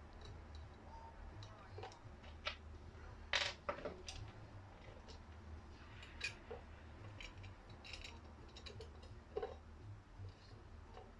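Scattered small clicks and metallic clinks of parts and tools being handled during assembly, the loudest a sharp clink about three and a half seconds in, over a low steady hum.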